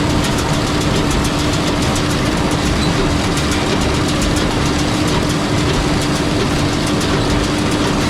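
Tractor running while pulling a New Holland small square baler that is baling hay: a steady engine hum under a continuous, rhythmic mechanical clatter.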